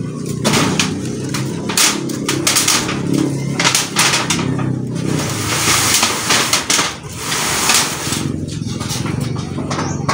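Old corrugated iron roofing sheets being pried loose with a wooden lever and lifted off: a run of sharp metal knocks and rattles, with scraping between them.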